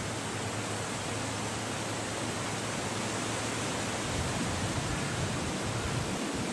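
Wind blowing steadily, a continuous even rushing hiss with no bird calls standing out.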